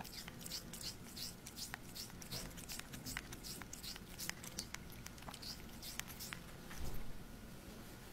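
A cat licking a treat on a stick: repeated soft, wet tongue clicks, about three a second. A dull low thump near the end.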